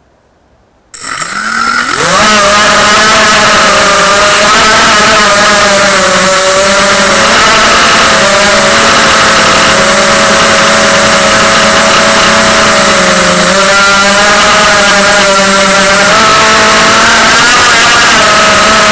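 250 mm FPV quadcopter's brushless motors and propellers spinning up suddenly about a second in, then running steadily and very loud with a high whine, the pitch wavering up and down as the throttle shifts.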